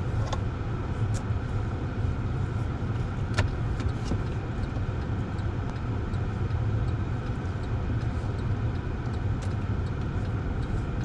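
Car running, heard from inside the cabin: a steady low rumble of engine and road noise, with a few faint scattered clicks.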